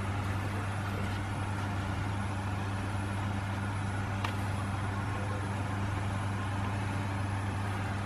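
A motor or engine running steadily with a low, even hum, and one faint click about four seconds in.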